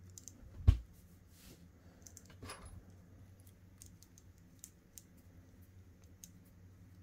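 Small metallic clicks and ticks of a hex key working a set screw into an aluminium Tikka T3x trigger housing, with one sharp knock about a second in and a short scrape about two and a half seconds in.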